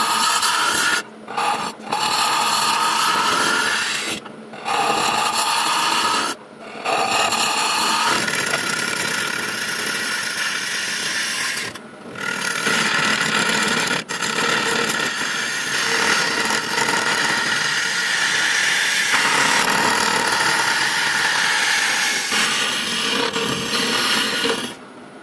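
A turning tool cutting inside a monkey puzzle wood vase spinning on a wood lathe: a loud scraping cut with a whine that rises in pitch, broken by several short pauses, stopping near the end.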